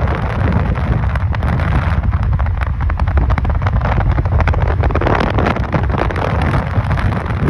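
Wind buffeting a phone microphone on a moving motorbike, with a steady low rumble and constant gusty crackle.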